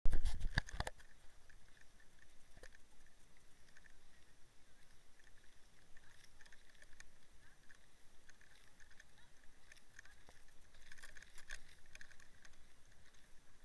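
Footsteps swishing through tall meadow grass at a brisk, even pace, after a few loud knocks in the first second.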